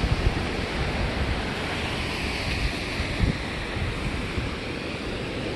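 Ocean surf washing in as a steady rushing hiss, with wind buffeting the microphone now and then.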